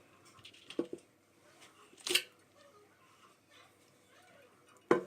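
A few sharp knocks and clicks of hand work in a small room: a quick pair, a louder, longer scraping knock about two seconds in, and another pair near the end.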